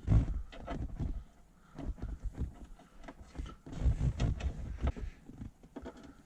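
Car's plastic interior trim panel being pushed into place and handled, with irregular clicks, taps and rustling in several short clusters.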